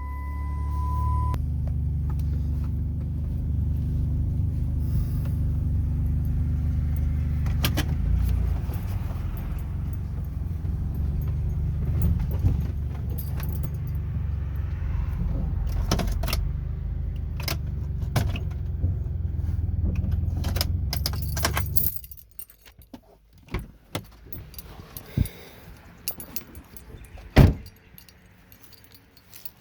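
Minivan engine running steadily, with a beeping chime for about the first second, then shut off abruptly about three-quarters of the way through. Afterwards come scattered clicks and knocks, the loudest a sharp knock near the end.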